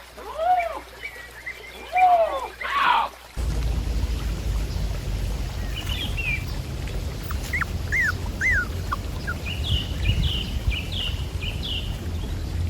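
An animal gives two short cries that rise and fall in pitch, with louder harsh bursts around them. About three seconds in, the sound changes abruptly to a steady low outdoor rumble like wind, with scattered bird chirps.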